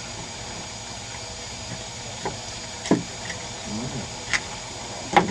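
Fillet knife cutting a coho salmon on a cutting table, with a few sharp knocks of the knife and fish against the board, the loudest about three seconds in and just before the end, over a steady hiss.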